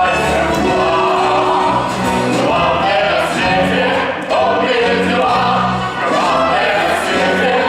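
Stage musical's cast singing in chorus over symphony orchestra accompaniment, during the curtain-call bows.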